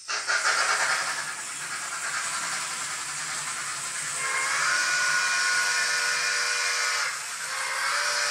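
Soundtraxx Tsunami TSU-2200 steam sound decoder in a Mantua 4-6-2 model locomotive: a loud steam hiss starts suddenly. About four seconds in the chime whistle blows a long blast of about three seconds, and a second blast starts near the end.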